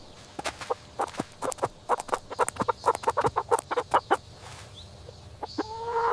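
A bird calling in a rapid, stuttering run of short notes, about five a second, then a short rising call near the end.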